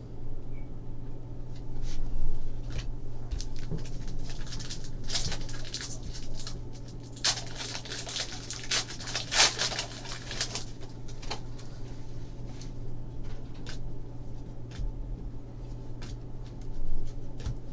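Trading cards being handled and sorted by hand: rustling, flicking and light slaps of card stock, busiest around the middle as a stack is tapped square on the desk. A steady low hum runs underneath.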